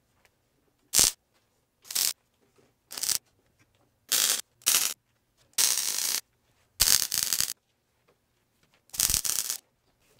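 MIG welder tacking a steel tube go-kart frame: about eight separate bursts of arc crackle, the first few very brief and the later ones up to over half a second, with quiet between.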